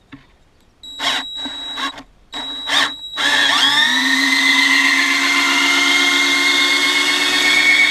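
Black & Decker EGBL108 cordless drill-driver driving a large wood screw. Two brief trigger pulls come first; then, about three seconds in, the motor spins up with a rising whine and runs steadily as the screw goes into the wood.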